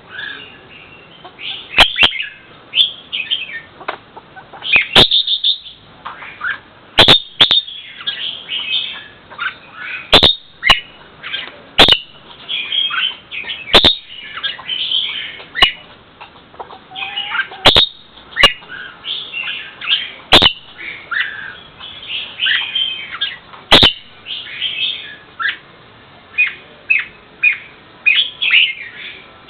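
A bird chirping and calling in many short, quick notes, with sharp clicks every couple of seconds.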